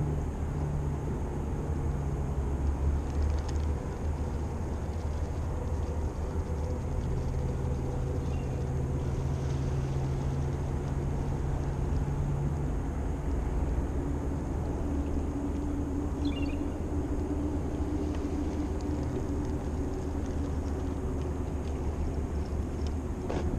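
Motorboat engine running steadily as the boat goes by, its note shifting about halfway through.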